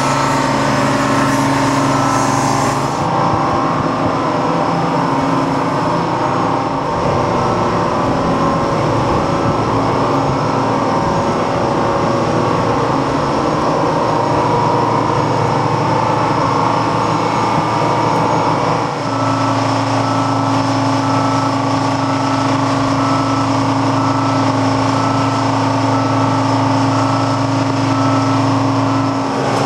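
Diesel engine of a mobile boat travel lift running steadily as the lift drives with a tugboat hanging in its slings.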